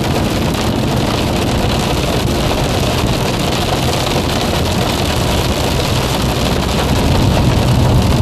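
Car moving on a freeway in a hailstorm, heard from inside the cabin: steady road and engine rumble with hail and rain pattering on the car, growing a little louder near the end.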